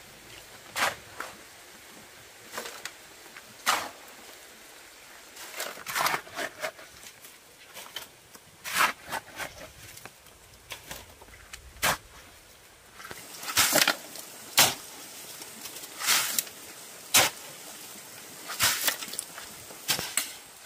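Irregular short knocks and scrapes from hand work with stone and cement, coming every second or so, some single and some in quick clusters, the loudest about two thirds of the way through.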